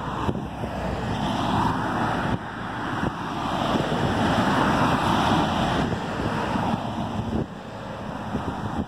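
Road traffic passing: the tyre and engine noise of cars and a box van towing a trailer swells to its loudest about four to five seconds in as they go by, then fades, with wind on the microphone.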